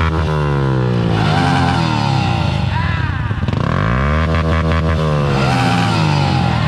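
Several small pit-bike engines running together, one revved up and let back down twice in long swells of pitch while the others idle underneath.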